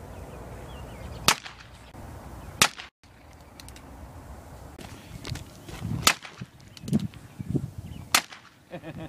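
Four single gunshots, fired one at a time over several seconds, each a sharp crack.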